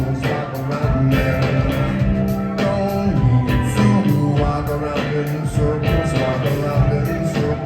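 Live rock band playing, with a steady drum beat, a strong bass line and some singing.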